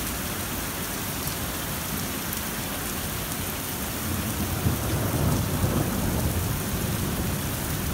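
Heavy downpour from a supercell thunderstorm hissing steadily, with a deep roll of thunder swelling from about halfway through. The thunderclap is really loud.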